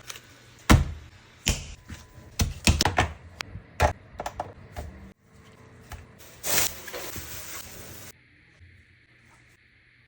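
Kitchen handling sounds during pastry making: a string of sharp knocks and clicks, then a brief rustling hiss, then quieter.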